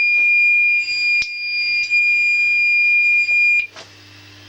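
Fire alarm sounder giving a continuous, high-pitched electronic tone, set off by aerosol test smoke sprayed onto a detector; it cuts off suddenly about three and a half seconds in.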